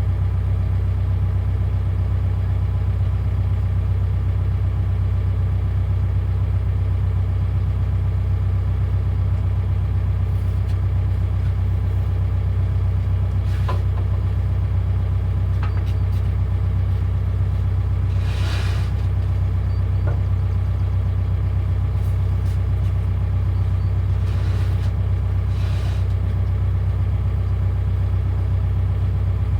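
Excavator engine running steadily with an even low drone. A few short noises sound over it, the longest about halfway through.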